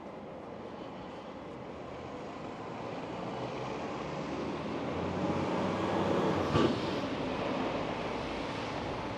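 A vehicle passing close by on a city street, its sound building over several seconds to a peak with a brief sharp clatter about six and a half seconds in, then easing off.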